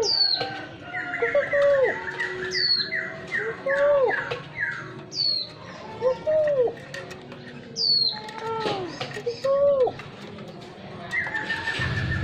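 Spotted doves cooing: low, rising-and-falling coo notes in short phrases repeated every couple of seconds. Over them, another small bird gives high quick descending chirps every two to three seconds, and a rapid trill runs for a few seconds early on.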